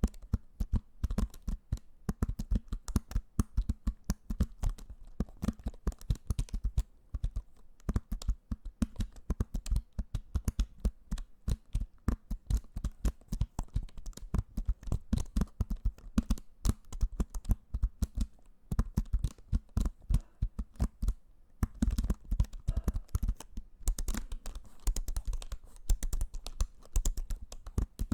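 Close-miked ASMR trigger sounds: rapid, irregular tapping and clicking with some scratching, in quick flurries broken by a few short pauses.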